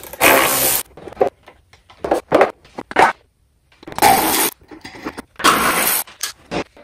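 Work on a car's engine bay as the stock air intake is removed: four short bursts of hissing noise, about half a second each, with scattered clicks and knocks of tools and parts between them.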